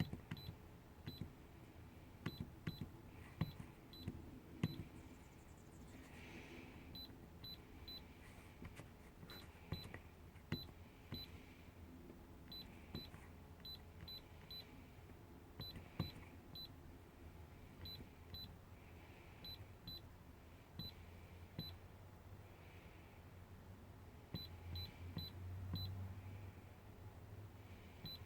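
Short, high electronic beeps in quick clusters of two to four, coming every second or two, with faint clicks between them; quiet throughout.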